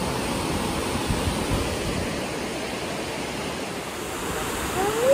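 Steady rush of white water from a waterfall and a rocky cascade, an even hiss with no pitch.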